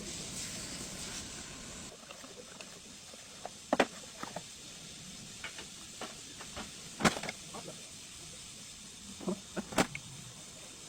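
A steady hiss that stops about two seconds in, followed by a scattering of sharp, short knocks and clicks, the loudest about four, seven and ten seconds in.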